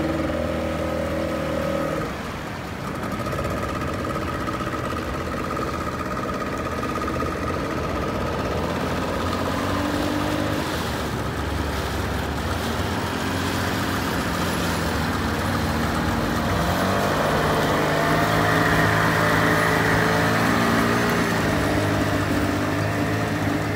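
Small fishing boat's engine running steadily. Its note shifts about two seconds in, then about two-thirds of the way through it rises in pitch and gets a little louder as it revs up.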